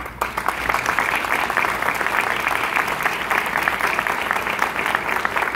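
Audience applauding: dense clapping from many hands, starting at once and holding steady.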